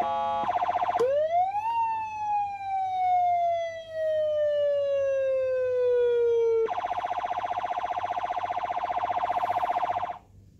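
CJB-400W 12-volt electronic siren amplifier sounding its tones. A steady, rapidly pulsing tone changes about a second in to a wail that rises quickly and then falls slowly over about five seconds. The steady pulsing tone then returns and cuts off suddenly near the end.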